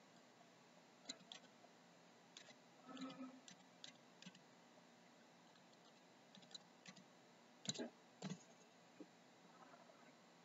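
Computer keyboard keystrokes, sparse and irregular, in near quiet, with the loudest pair of clicks about two thirds of the way through.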